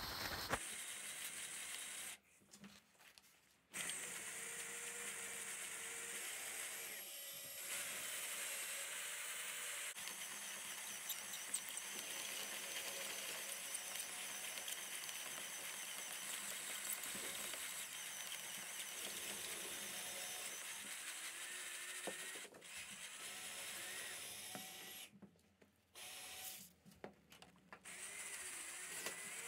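Electric drill with a 5mm cobalt bit running slowly, drilling out a high-tensile steel bolt head in a steel seat rail with cutting oil. The drill sound is steady and quiet, and breaks off for a moment three times.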